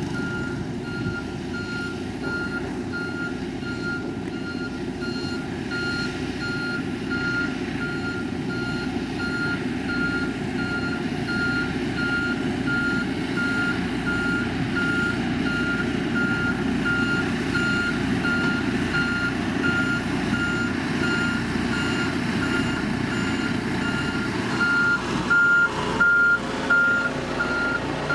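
Heavy road-building machine's backup alarm beeping steadily, about two beeps a second, over its running engine; the beeps get louder near the end.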